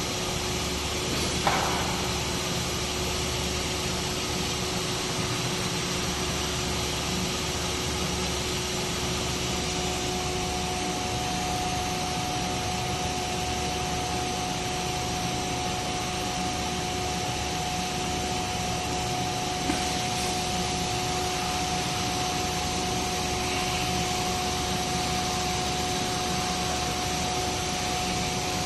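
Small automatic-tool-changer CNC router running: a steady whine over a steady rushing noise, with a second, higher tone joining about a third of the way in. A sharp click comes about a second and a half in.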